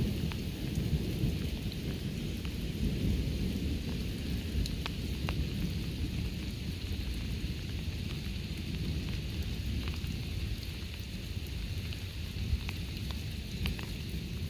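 Thunder rumbling low and long under steady rain, with single drops ticking close by. The rumble slowly dies down.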